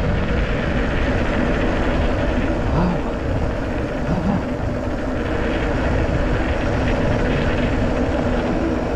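Steady rumbling noise of a mountain bike being ridden over a rough trail, with wind buffeting the camera microphone.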